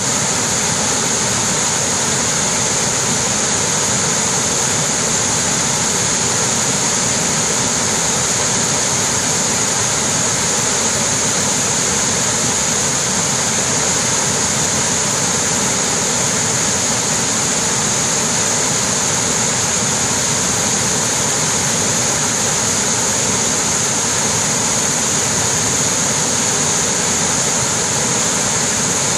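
Cane Creek Falls, a wide waterfall cascading over rock ledges into a pool: a steady, unchanging rush of falling water.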